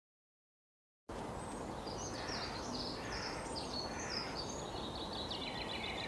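Songbird singing a string of varied high, quick phrases, with rapid trilled notes toward the end, over a steady outdoor background hiss; it starts abruptly about a second in.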